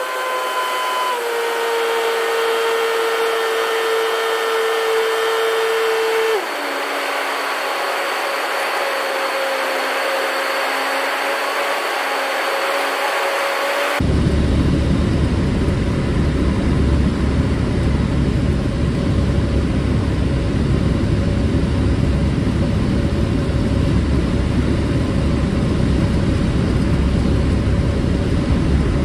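Single-engine light aircraft's engine and propeller droning in the cockpit on the descent to the runway. The steady pitch steps down about six seconds in. About halfway through the sound turns abruptly into a deeper, fuller rumble of engine and airflow.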